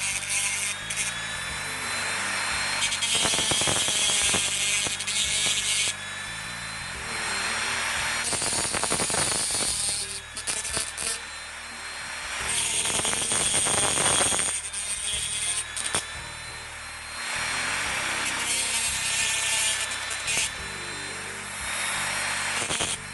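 A small tool cutting a thin plate in bursts of a few seconds, with a rasping, sawing sound, over background music.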